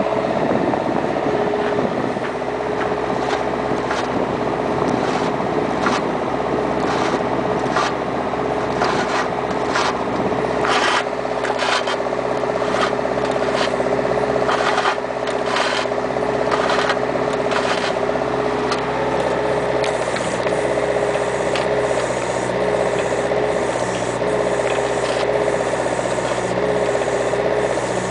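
Bobcat 334 mini excavator running with a steady engine note and a held whine, with many sharp clicks and knocks from the machine throughout.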